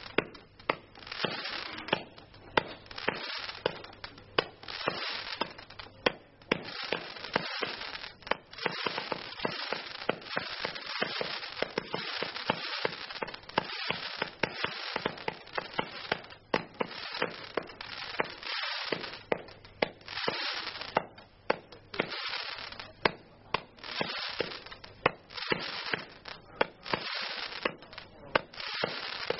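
Brightstar Crackerball Ion Storm 200-shot barrage cake firing shot after shot, about one or two a second. Each sharp launch bang is followed by a dense crackling from the crackerball effects.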